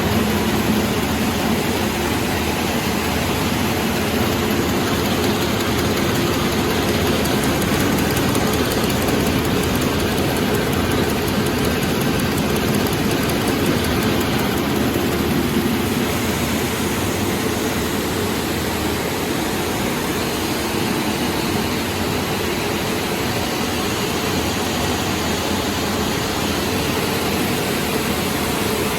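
Breadcrumb production-line machinery running steadily: a continuous mechanical hum and noise with no break.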